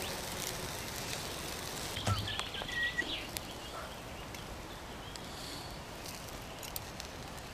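Sausages sizzling on a wire grill over a wood fire, with a few light clicks of the tongs and fork against the grill as they are turned, mostly two to three seconds in.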